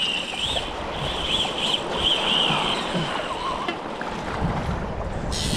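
Steady rush of wind on the microphone and moving sea water, with a faint wavering high-pitched whine through the first half; the sound changes abruptly near the end.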